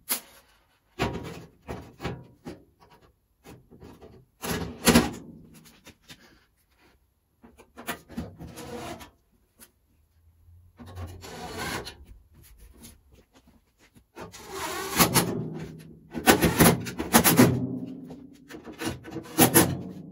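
Steel scuttle panel on a classic Mini being worked into place against the car's bulkhead: irregular scrapes and knocks of sheet metal rubbing and bumping on metal, busiest and loudest in the last few seconds.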